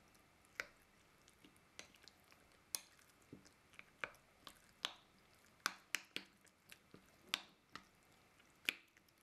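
Metal spoon stirring wet minced pork and onion filling in a glass bowl: faint, irregular wet squelches and light clicks of the spoon against the glass, a couple each second.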